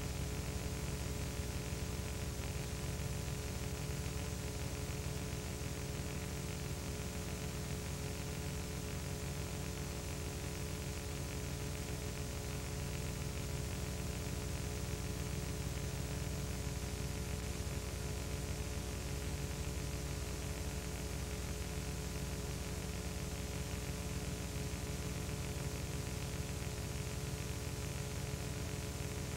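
Steady static hiss with an electrical hum underneath and nothing else, unchanging throughout: the empty soundtrack of a silent old home-movie transfer.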